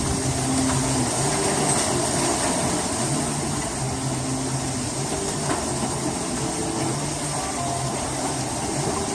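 Hail and heavy rain pelting down in a dense, steady rush of noise.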